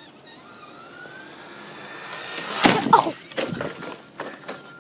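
Traxxas Slash RC truck's electric motor whining and rising in pitch as it speeds up. Then, about two and a half seconds in, a loud clatter of thuds and knocks.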